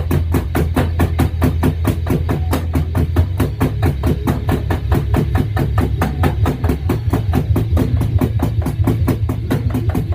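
A drum kit played in a fast, steady rock beat, with dense, even strikes and a heavy bass-drum low end, coming in loud all at once.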